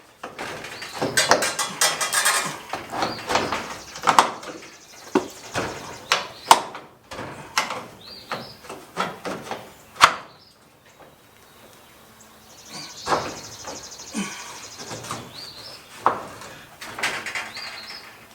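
Metal shed-door track being pried and worked straight by hand, with irregular clanks, knocks and scrapes of metal; one sharp knock stands out about ten seconds in, followed by a quieter spell.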